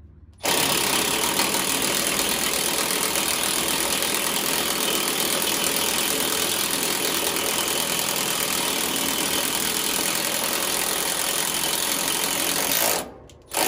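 Power drill running steadily, boring a larger hole through a refrigerant pipe for a fitting with a somewhat dull bit. It stops near the end, then starts again briefly.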